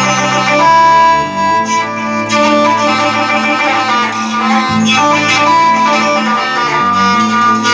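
Instrumental interlude of Arabic mawwal accompaniment between sung lines: a sustained melodic lead over a steady bass line, with no singing.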